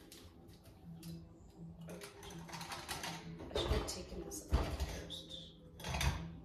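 Glassware and dishes handled at a kitchen sink: irregular clinks, knocks and rattles of glass tumblers, with a few louder clatters in the second half.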